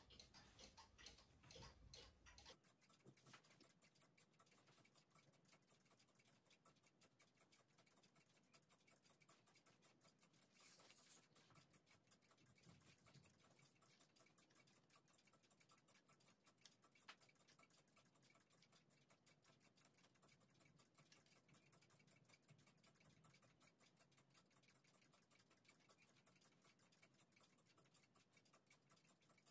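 Near silence: faint, rapid, steady ticking over quiet room tone, with a brief soft hiss about eleven seconds in.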